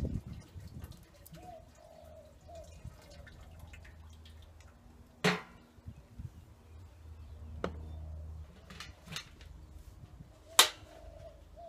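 A few sharp knocks and clanks as the lower access door and parts of a charcoal bullet smoker are handled during re-chipping, the loudest about five seconds in and again near the end.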